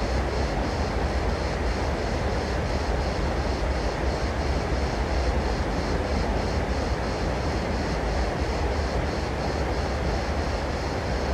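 Steady, loud background rumble with a low hum underneath. A faint high pulsing repeats about four times a second over it.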